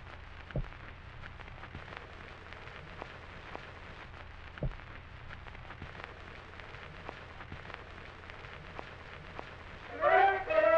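Surface hiss and crackle of an old phonograph recording, with scattered faint clicks and two louder pops. About ten seconds in, brass band music begins loudly.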